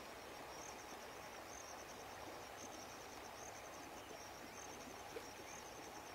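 Faint outdoor ambience: insects chirping in short, high, rapid trills that repeat every second or so over a steady low hiss.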